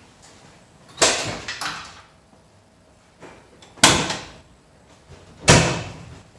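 Three heavy bangs from metal work on the pickup's front end, a couple of seconds apart, each fading out over about half a second, with lighter knocks between them.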